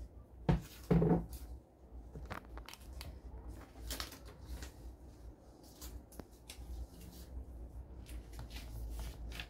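Clear packing tape pulled off its roll in two short rasps about half a second and a second in, followed by faint paper rustling and small handling clicks as a printed sheet is taped up.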